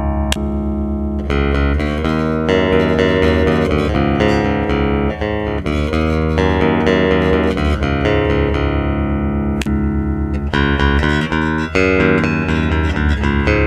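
Instrumental guitar music: plucked guitar notes and chords over a strong, continuous bass line, without singing.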